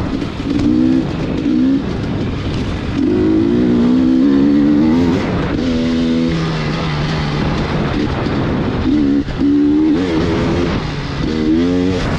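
Motor vehicle engine running under load, its revs rising and falling repeatedly.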